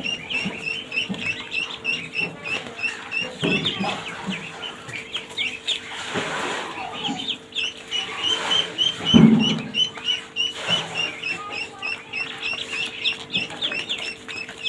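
Ducklings peeping, a steady run of short high peeps at about four a second. A couple of dull low thumps come about three and a half and nine seconds in, the second the loudest sound.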